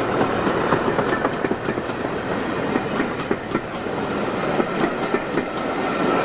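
Passenger coaches of a diesel-hauled train passing close by, the wheels and bogies running on the rails with a steady rumble and many quick clicks.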